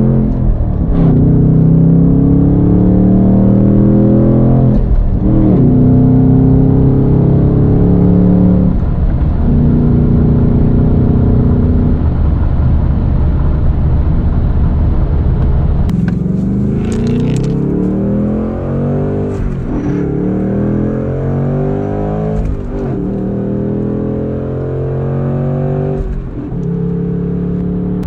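Ford Mustang S650 GT's 5.0 V8 heard from inside the cabin, driving under power. The engine note repeatedly climbs and then dips sharply, about six times.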